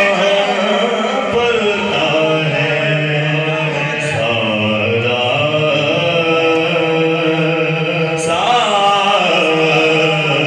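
A man's voice chanting devotional verses into a microphone, amplified over a public address system, with long held notes that slide slowly in pitch.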